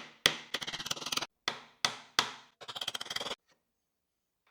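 Hammer driving small nails into wood: several sharp strikes, each followed by a run of quick light taps. The hammering stops about three and a half seconds in.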